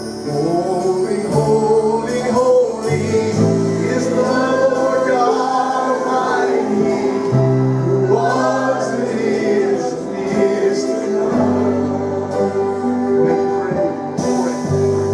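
Gospel worship song: a congregation or choir singing over a band, with sustained bass notes changing every second or two.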